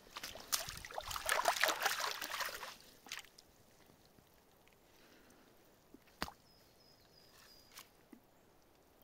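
Water sloshing and splashing, with dry grass rustling, as a shed deer antler is pulled up out of a shallow puddle, for about the first three seconds. Then it goes quiet apart from a sharp click about six seconds in.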